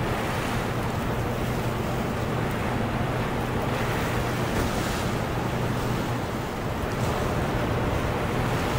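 Turbulent whitewater rushing below a dam spillway: a steady, even roar of churning water, with a steady low hum underneath.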